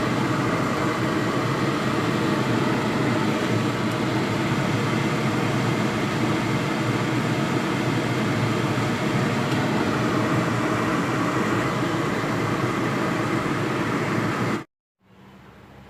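Steady rushing noise from the stovetop as the three-cup chicken cooks in the pan. It cuts off abruptly near the end.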